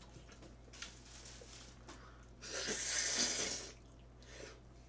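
Jjamppong noodles being slurped from a bowl: one long slurp of about a second, starting about two and a half seconds in, with a few faint clicks before it.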